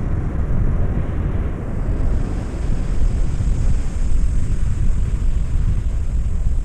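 Wind buffeting the microphone, a steady low rush that swells and eases, over the wash of surf breaking on the beach.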